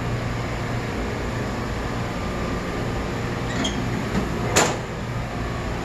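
Steady low hum of an electrical room, with a few faint knocks and then one sharp metal clack about four and a half seconds in.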